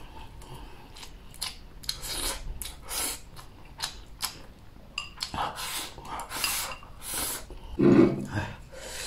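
Eating sounds: chopsticks clicking and scraping against a ceramic bowl, chewing and sharp hissing breaths through the mouth while eating very hot green chili peppers on rice. About eight seconds in comes a loud, throaty vocal sound, the kind of noise made by someone who has eaten too fast.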